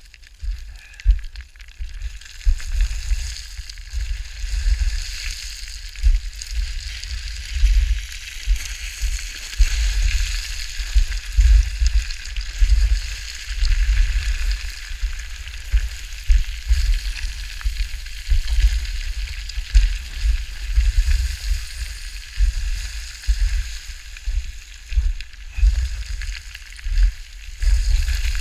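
Wind buffeting the microphone in irregular low gusts over a steady hiss.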